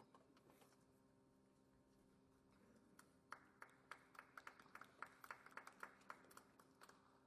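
Scattered hand clapping from a small crowd, starting about three seconds in and lasting a few seconds, over a faint steady hum.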